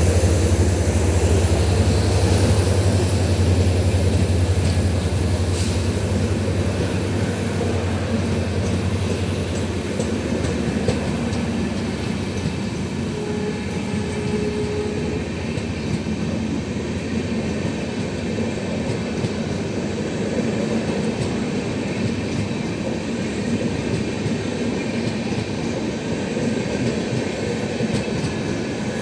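A passenger train of LHB coaches rolling past over the rails, with a steady rumble and wheel clatter. The low hum of its EMD WDP4D diesel locomotive fades away over the first several seconds.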